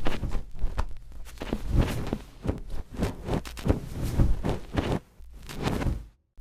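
A rapid, irregular run of knocks and crackles from an edited sound-effects track, cutting out abruptly for a moment about five seconds in and again near the end.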